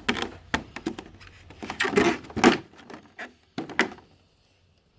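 Headset packaging being handled and pulled apart: a run of clicks, knocks and rustles, loudest about two seconds in, that cuts off suddenly about four seconds in.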